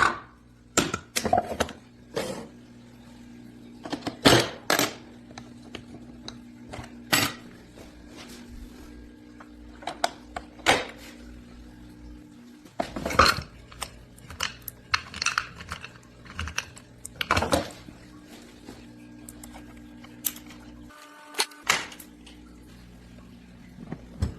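Irregular sharp clinks and knocks of hard objects, about a dozen spread unevenly, over a low steady hum.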